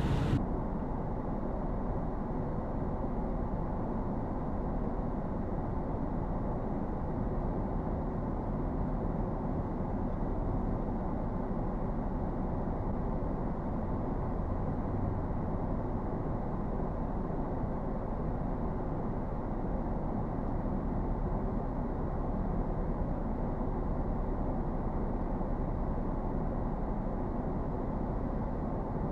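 Steady low rumble of a vehicle driving on a road, even throughout with no separate knocks or horns.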